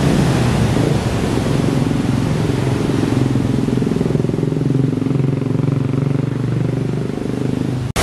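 A motor vehicle's engine running close by, heard as a steady low drone over the continuous rush of a waterfall. The sound cuts off abruptly near the end.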